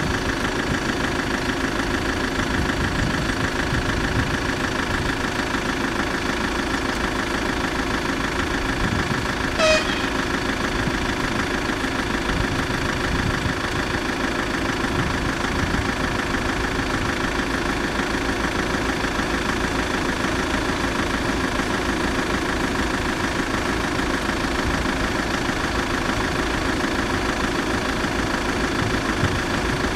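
Car engine idling steadily. About ten seconds in there is one short, high-pitched chirp.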